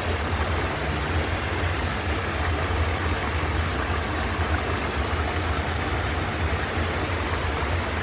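Loaded grain hopper wagons of a long freight train rolling steadily across a high viaduct, a constant low rumble, over the even rush of a nearby waterfall.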